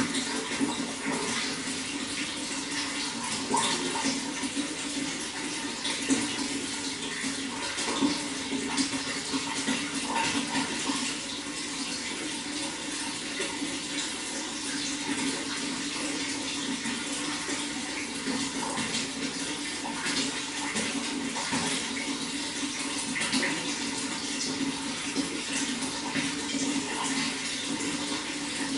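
Running water flowing steadily, with occasional slightly louder splashes.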